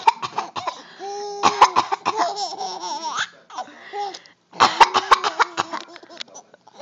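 A person coughing in short, sharp bursts, and a small child laughing in high-pitched peals between the coughs, set off by the coughing.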